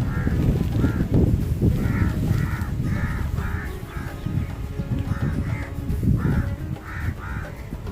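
Crows cawing in two runs of short, repeated calls, over strong wind rumbling on the microphone that eases somewhat about halfway through.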